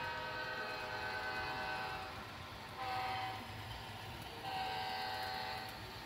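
Soundtraxx Tsunami 2 sound decoder in an HO-scale Amtrak P32-8BWH model sounding its multi-chime diesel air horn through the model's small speaker: a long blast, a short one about three seconds in, then another long one. The long–short–long ending fits the grade-crossing horn signal.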